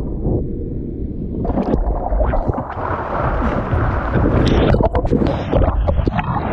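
Low wind rumble on the microphone, then from about a second and a half in, loud rushing and splashing water with many sharp clicks and spatters, as of surf breaking around the camera.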